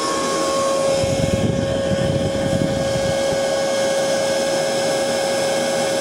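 Leaf blower running steadily, a rush of air with a steady motor whine, blowing air through a heat exchanger. A stretch of low rumbling comes in about one second in and fades by three and a half seconds.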